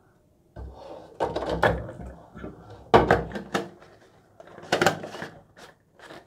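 Plastic film-developing reels and the tank's centre column being handled and fitted into a developing tank: a run of clattering and knocking, the sharpest clack about three seconds in.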